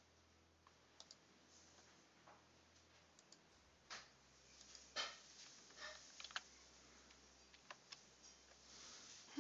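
Faint, irregular clicks and taps at a digital drawing desk, about a dozen, the loudest about four and five seconds in, over a faint low hum.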